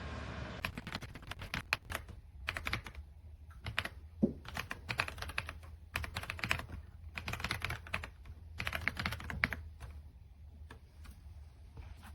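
RK Royal Kludge R75 gasket-mounted 75% mechanical keyboard being typed on: quick runs of keystrokes in bursts, with short pauses between them.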